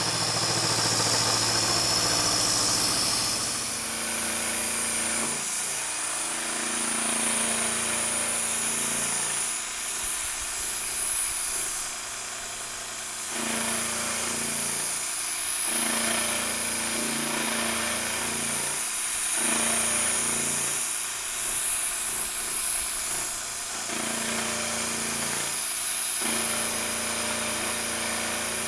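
Milling machine spindle running at about 850 RPM, its cutter taking a conventional cut in annealed A2 tool steel. A steady hum with a high cutting hiss, its tone shifting every few seconds as the cut goes on.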